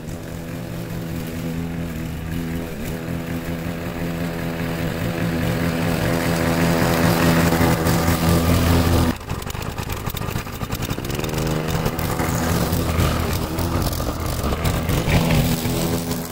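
Briggs & Stratton single-cylinder engine of a walk-behind rotary mower running steadily under load while cutting grass. It grows louder as the mower comes close, drops suddenly about nine seconds in, then runs on.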